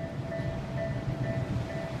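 Japanese railroad crossing warning bell ringing in a steady repeated ding, about two strikes a second, over the low rumble of an approaching train.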